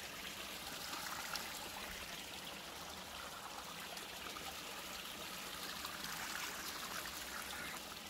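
Small creek trickling and running steadily as it flows under a road.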